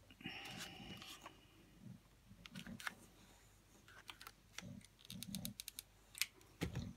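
Hands handling paper craft pieces and a hot glue gun on a work surface: a brief rustle near the start, then scattered light clicks and taps, with a sharper click and a dull knock near the end.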